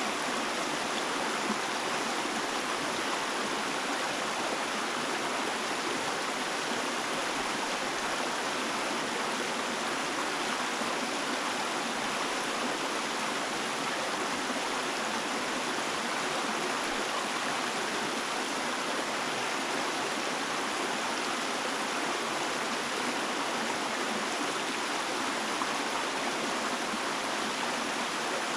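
Flowing stream water, an even, steady rushing with no breaks or changes.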